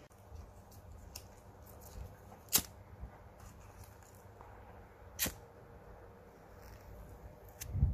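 Handling noises from working on an opened LCD TV: small ticks, two sharp clicks about three seconds apart and a dull thump near the end, over a faint low hum.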